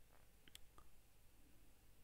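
Near silence with a few faint computer-keyboard keystrokes, short clicks about half a second to a second in, as code is typed.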